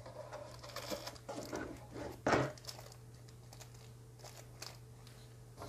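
Small clear plastic bag of screws and wall anchors being handled, its plastic rustling in short bursts over the first two and a half seconds, the loudest about two seconds in, then little more.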